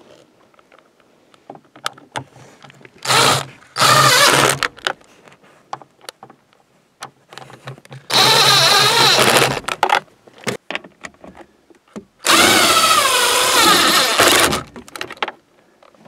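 Power drill driving the console mounting bolts home through the cup holder, running in four spurts of about half a second to two and a half seconds, with light clicks of handling between them.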